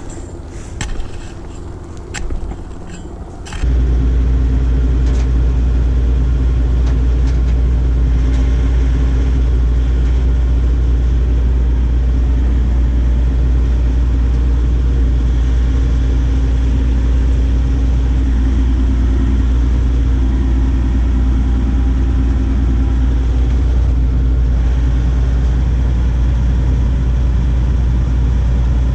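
A few light clicks and knocks, then about three and a half seconds in a large diesel engine's loud, steady, deep drone cuts in abruptly and runs on evenly.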